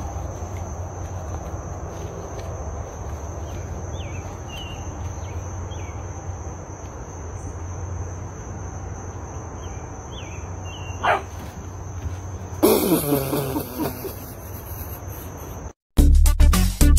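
Outdoor ambience with a steady high-pitched insect drone over a low rumble and a few faint chirps. About thirteen seconds in there is a short, loud, noisy outburst whose pitch falls. Music with a beat starts near the end.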